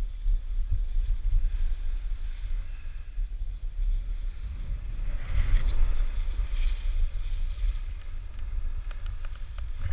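Wind buffeting a helmet-mounted camera's microphone while skiing downhill, with skis scraping and hissing over packed snow, loudest around the middle. A few light clicks near the end.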